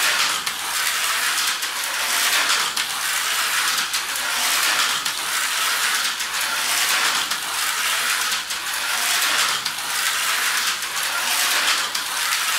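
Tyco 440 x2 HO slot car whirring around an oval track, the sound swelling and fading as it comes past on each lap. The freshly oiled motor is being run in and is still slow to get going.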